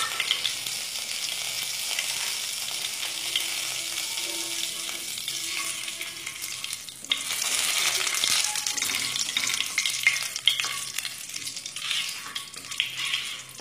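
Whole spices (dry red chilli, bay leaf and panch phoron) sizzling and crackling in hot mustard oil in a non-stick pan, stirred with a flat wooden spatula scraping across the pan. The sizzle gets louder about halfway through.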